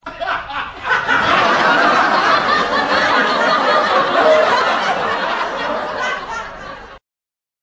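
Canned audience laughter, a crowd of people laughing at once, that cuts off suddenly near the end.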